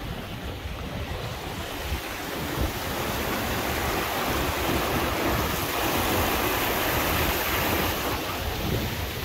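Fast mountain stream rushing over rocks, swelling to its loudest as it is crossed on a footbridge and easing off near the end, with wind buffeting the microphone throughout.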